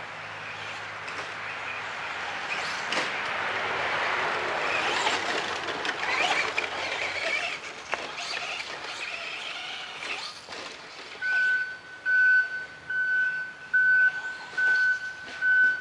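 Traxxas Slash RC short-course truck running on a dirt track: a rush of motor and tyres on dirt that swells and then fades. From about eleven seconds in, a steady high electronic beep repeats a little more than once a second.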